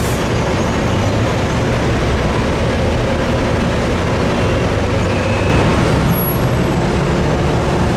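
Cane truck's diesel engine running as the loaded trailer pulls forward under the unloading crane, over a steady industrial din. A steady hum joins about six seconds in.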